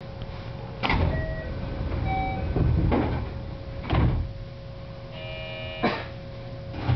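JR West 321 series commuter train standing at a station platform: a steady electrical hum, with five heavy thuds about a second apart and short electronic beeps, including a longer multi-tone beep shortly before the fourth thud.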